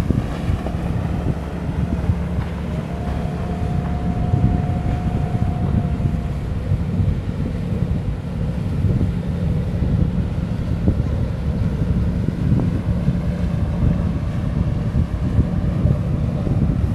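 Wind buffeting the microphone in a steady, gusting low rumble, mixed with the engine of a small harbour launch passing close by on the water. A faint steady tone sounds for a few seconds near the start.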